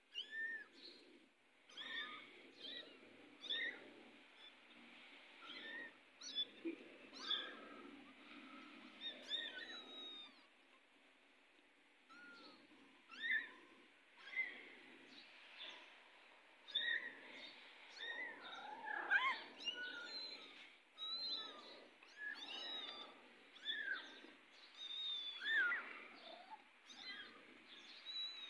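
Young kittens mewing over and over: short, high-pitched calls that bend up or down, a few each second.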